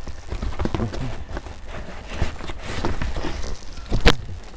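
Packaging being handled: a run of irregular rustles and small knocks, with one sharp knock about four seconds in.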